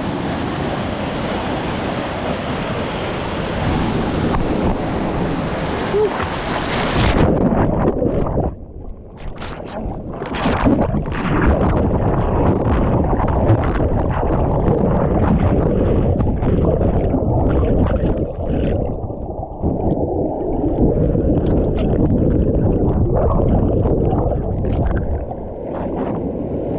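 Rushing water of a waterfall pool. About seven seconds in it turns suddenly muffled and low, with gurgling, crackles and knocks, as the microphone goes under the water.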